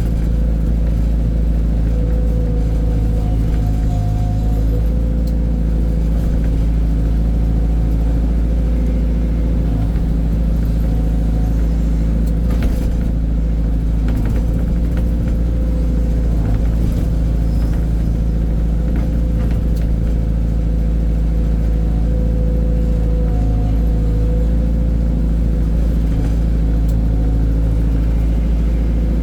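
Heavy earthmoving machine's diesel engine running steadily, a constant deep drone with a faint whine that comes and goes.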